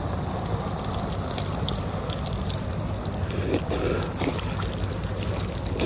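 Swimming-pool water splashing and trickling, a steady wash dotted with many small, sharp splashes.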